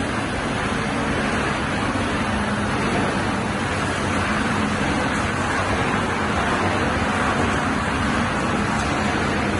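300 kg/h PP plastic washing line running on its test run: the gear motors on the washing tanks, the screw conveyor and the squeezer machine together make a steady rushing noise with a constant low hum underneath.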